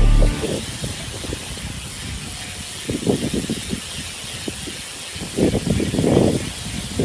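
Small motorcycle being ridden with cans fitted in its rear wheel rim, a trick meant to make it sound louder. Its sound swells briefly about three seconds in and again more strongly near the end, over a steady hiss.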